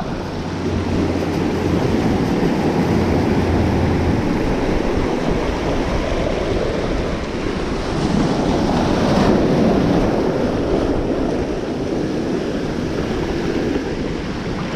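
Sea surf washing and breaking over shoreline rocks, with wind buffeting the microphone. The wash swells louder about eight to ten seconds in.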